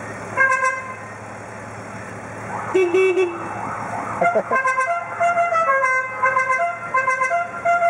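Car horns sounding in short pitched notes. From about four and a half seconds in, a musical horn plays a quick tune, jumping between notes.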